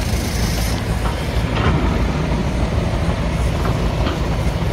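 Motor vehicle driving, a steady low engine and road rumble.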